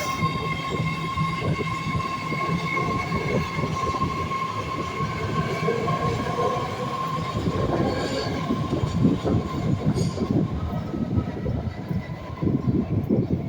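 BART train running past on the rails: a dense rumble and clatter of wheels, with a steady high whine that fades out about ten seconds in.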